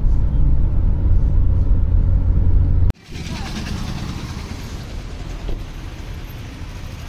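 Low, steady rumble of a car, heard from inside the cabin. About three seconds in it cuts off abruptly to quieter outdoor street noise.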